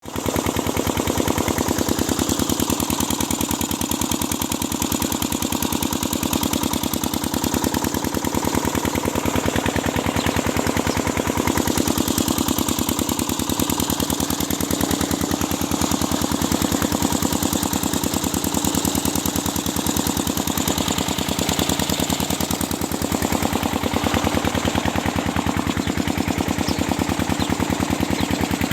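Diesel irrigation pump engine running steadily, a rapid even beat of exhaust pulses.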